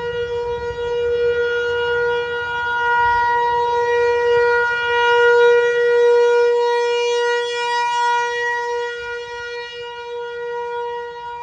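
Tornado warning siren sounding a steady, unwavering wail with a rich stack of overtones, swelling louder toward the middle and easing slightly near the end.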